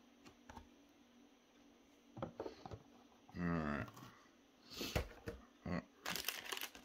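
Cardboard box and plastic packaging being handled to work a boxed toy grapple launcher loose: scattered clicks and rustles, a short hummed vocal sound about halfway through, and a denser run of crinkling near the end.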